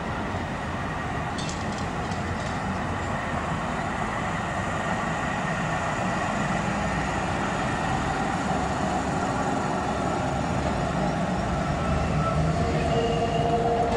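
Articulated electric tram running past on street track: a steady rumble of wheels on rail that grows louder as it passes, with a few light clicks about two seconds in and a steady squeal setting in near the end.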